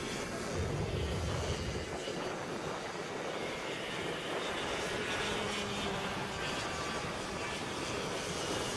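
Two-stroke racing kart engines buzzing steadily as karts run around the circuit.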